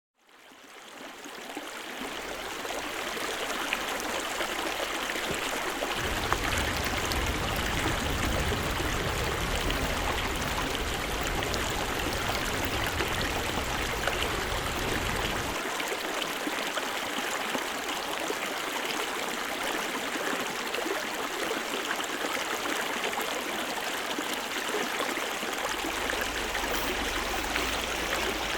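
Flowing stream water, a steady rushing that fades in over the first couple of seconds; a low rumble comes in about six seconds in, drops out near the middle and returns near the end.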